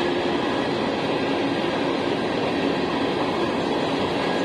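CSX freight train's hopper cars rolling steadily past: the even noise of steel wheels running on the rails.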